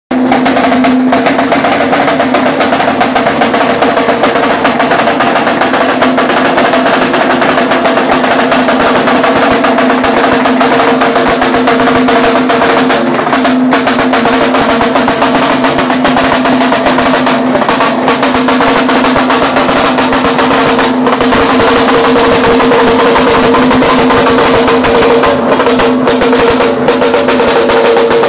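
Lambeg drum beaten with thin cane sticks in a loud, continuous rapid roll, the big goatskin heads ringing in a steady pitched hum under the rattle of the strokes.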